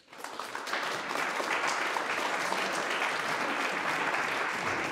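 Audience applauding at the end of a talk: many people clapping, starting up together and building quickly to a steady ovation.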